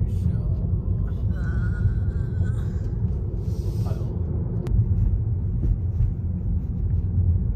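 Car driving on a winding mountain road, heard from inside the cabin: a steady low rumble of road and engine noise.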